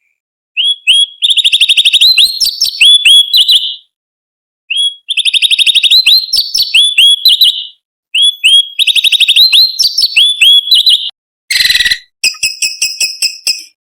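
Orange-bellied leafbird (cucak cungkok) singing loudly: three fast phrases of sharp whistled notes and trills, each about three seconds long with short pauses between them. Near the end comes one harsh rasping note, then a quick string of thin, ringing chips.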